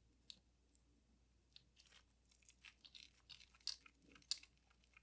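Faint, scattered clicks and scrapes of a small screwdriver working tight screws loose on a Leica IIIF camera body, busier in the second half with a couple of sharper clicks near the end.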